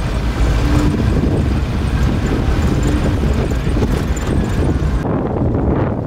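A vehicle driving on an unpaved gravel road: a steady rumble of engine and tyres, with wind noise on the microphone. About five seconds in, the higher hiss drops away abruptly.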